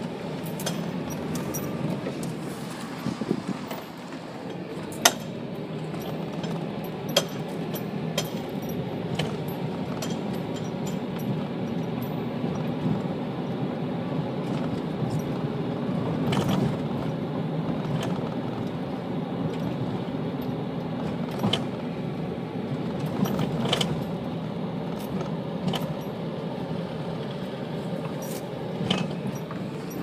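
Inside a vehicle's cabin while driving slowly on an unpaved dirt road: a steady low rumble of engine and tyres, with a few sharp clicks and rattles scattered through it.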